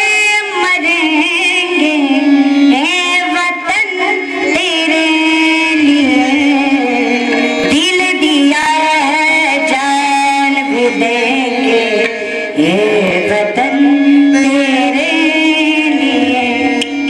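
Voices singing a Marathi devotional kirtan song with drum-like percussion beneath.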